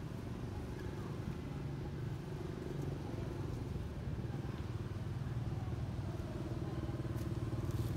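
An engine running steadily with a low hum that grows a little louder in the second half.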